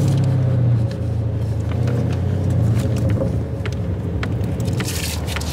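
Car engine and exhaust droning low, heard from inside the cabin as the car slows in traffic, with a few short sharp pops.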